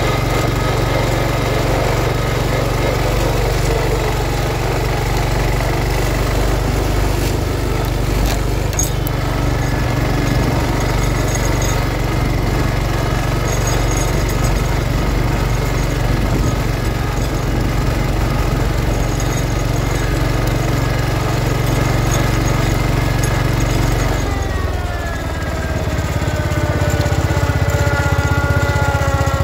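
John Deere 140 H3 garden tractor's single-cylinder Kohler engine running steadily under load while pulling a sleeve-hitch moldboard plow through sod. Near the end a whine drops in pitch and the engine note changes.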